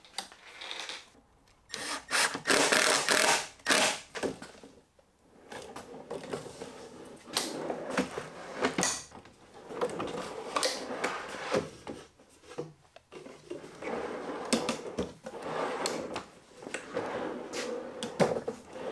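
Wooden drawer boxes on metal side-mounted soft-close drawer slides, slid out and pushed back in several times: a rolling, sliding rattle from the telescoping slides, with sharp clicks as they engage or reach the end of their travel.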